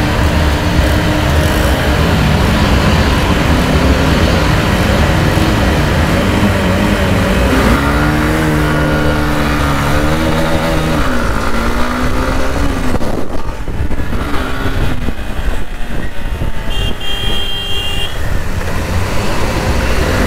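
Hero Xtreme 160R's single-cylinder engine running hard on a race lap, under heavy wind rush over the camera microphone. About halfway the engine's pitch climbs and falls as the revs change, then eases off for a few seconds.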